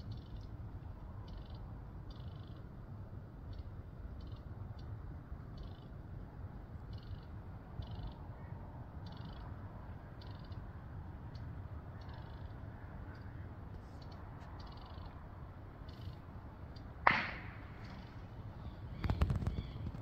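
Outdoor background of a steady low rumble with faint, high-pitched chirps repeating about twice a second. Near the end comes one sharp, loud click, followed a couple of seconds later by a short cluster of knocks.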